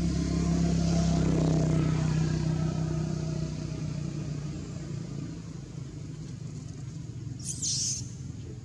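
A passing motor vehicle's engine drones, loudest a second or two in and fading away over the next few seconds. A short high-pitched squeak comes near the end.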